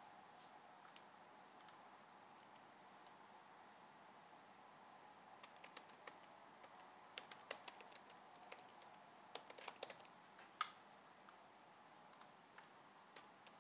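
Faint computer keyboard typing: scattered single keystrokes at first, then quick runs of key clicks through the middle and later part, over a low steady background hiss.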